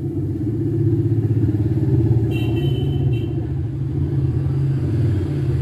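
Hot-air heat gun blowing steadily, a low whirring drone, while reflowing solder to seat a phone's charging jack. A brief high tone sounds for about a second, a little past the middle.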